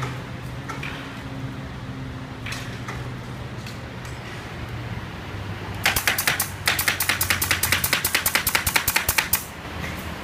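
Steady machinery hum in a furniture factory workshop. Past the middle comes a fast run of sharp clacks, about seven a second, lasting a few seconds.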